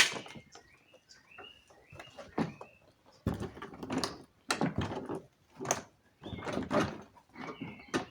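Car door trim panel being handled and pressed onto the door. There is a sharp knock at the start, then irregular clicks, taps and scraping of plastic, with a few short high chirps.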